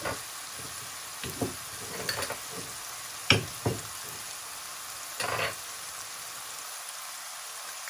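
Minced pork sizzling in a frying pan, a steady hiss. A few sharp clicks and knocks sound over it, the loudest about three seconds in.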